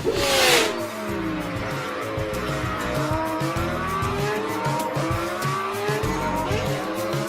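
Cartoon sound effect of car tyres squealing, several overlapping squeals gliding up and down in pitch, over background music.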